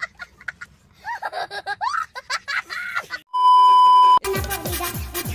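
A child's voice laughing and squealing with sliding pitch. Then a loud, steady TV test-pattern beep at one pitch is held for just under a second and cuts off abruptly as music starts.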